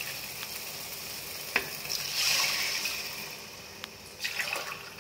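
Water poured from a tumbler into a steel pot of hot biryani masala, splashing and sizzling in a longer pour followed by a shorter one near the end, with a sharp tap of the vessel a little before the first pour.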